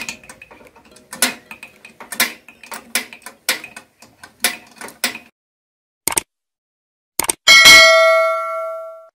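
Small metal clicks and clinks of hands and tools working on an engine part for the first five seconds. After a pause come a couple of clicks, then a loud bell chime that rings and fades away: a subscribe-button sound effect.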